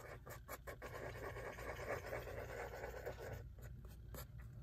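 Faint scratching of a cotton swab stirring two-part epoxy cement on a piece of cardboard, dying away a little after three seconds in.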